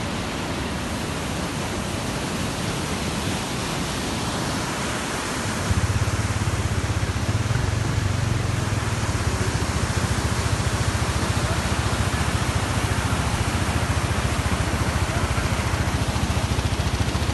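Meltwater stream rushing steadily as it runs out from under a snow avalanche cone. About six seconds in, a low rumble joins it and stays.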